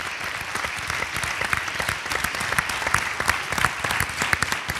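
Studio audience applauding, many hands clapping together.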